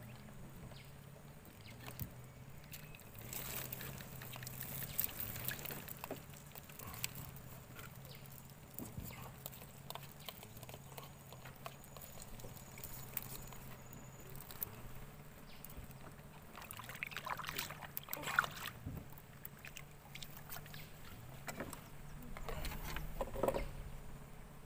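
Faint knocks, clicks and rustles of fishing tackle being handled in a small wooden boat, with water lapping at the hull. Underneath runs a low hum that steps between two pitches over and over.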